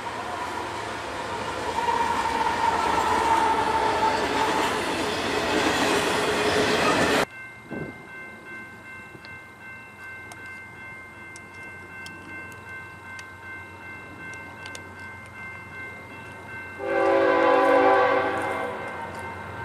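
Double-stack freight train rolling past with steady wheel-on-rail noise, which cuts off abruptly about seven seconds in. After a quiet stretch with faint steady high whining, a diesel locomotive horn sounds one long loud blast near the end.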